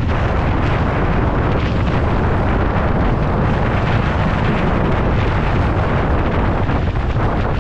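Strong wind buffeting a mountain bike rider's camera microphone in a loud, steady rush. Under it are the crunch and rattle of the bike's tyres rolling over a rocky gravel trail.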